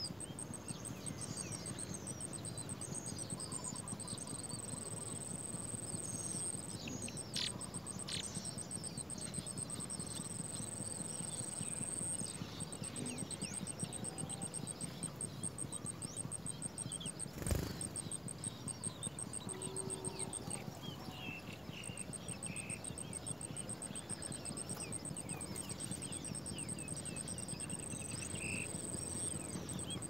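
Many short, high bird chirps and peeps, over a continuous fast-pulsing high trill; a single sharp click sounds about seventeen seconds in.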